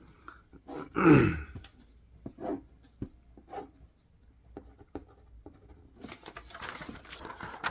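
Ballpoint pen scratching on a sheet of A4 paper, with faint ticks and paper handling. There is a short vocal sound about a second in, and a sharp click at the end.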